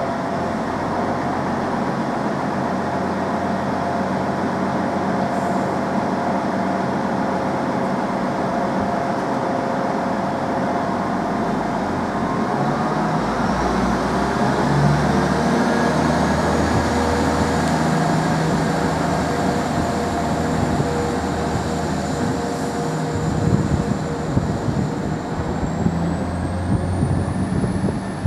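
Class 175 diesel multiple unit's underfloor diesel engines idle steadily. About twelve seconds in they rev up with a rising whine as the train pulls away, and a higher whine climbs again near the end as it gathers speed.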